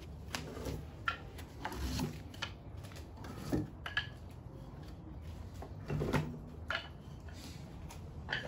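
Scattered light knocks and clatters from wooden sticks and tools being handled around a taiko drum's rope-stretching rig, at irregular moments with short quiet gaps between.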